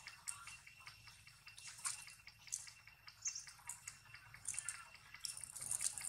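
Faint, irregular soft clicks and smacks, several a second, from long-tailed macaques grooming a baby with mouths and hands, a few louder ones near the end.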